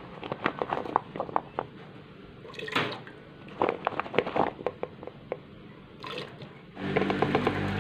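Chunks of raw cassava dropped by hand into thin coconut milk in an aluminium pot: a run of small plops, splashes and clicks. Near the end a steady pitched hum comes in.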